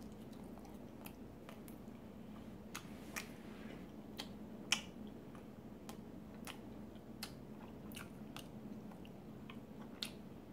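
A person chewing food: soft, scattered mouth clicks and smacks, the loudest a little under halfway through, over a faint steady hum.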